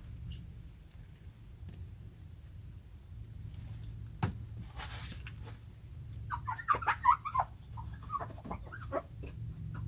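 A rapid, chattering burst of bird calls, like a fowl's, after a single sharp click, over a steady low hum.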